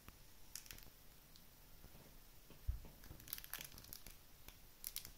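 Plastic wrapping on a Blu-ray case crinkling and tearing in several short crackly spells as it is unwrapped, with one soft low thump just under three seconds in.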